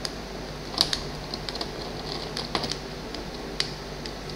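Hand screwdriver tightening a small screw into a gear motor mount on a robot chassis: scattered light clicks and ticks, the sharpest about a second in and a small cluster a little later.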